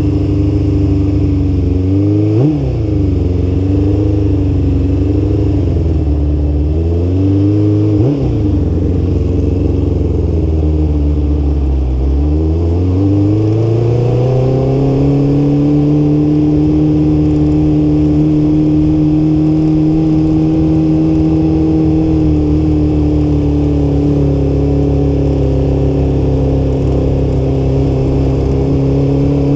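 Motorcycle engine heard from the rider's seat while riding at low speed. Its pitch falls and rises several times over the first twelve seconds, with two brief sharp jumps, then climbs about twelve seconds in and holds steady.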